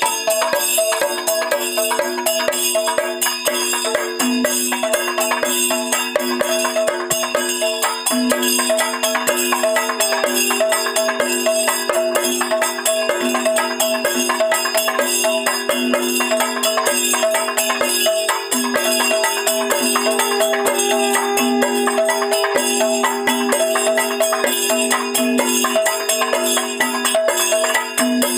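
Traditional temple music with held notes that change pitch now and then, over fast, continuous percussion.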